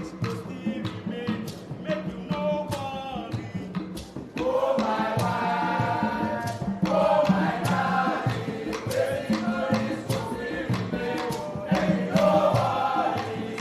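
Music with singing voices over a steady percussion beat; the singing grows fuller and louder about four seconds in.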